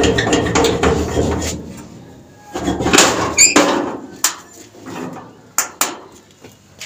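A metal door being handled and pushed open: rattling and clatter, a short metal squeak about halfway through, then a few sharp knocks.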